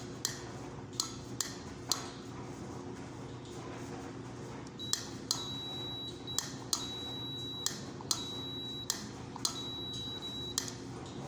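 Washing machine pressure switch clicking over as air pressure in its tube trips it, with a multimeter on continuity giving a steady high beep each time the normally open contacts close. There are several clicks first, then four beeps of about a second each, each starting and ending on a click.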